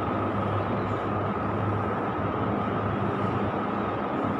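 Steady background noise: an even hiss with a constant low hum, unchanging throughout.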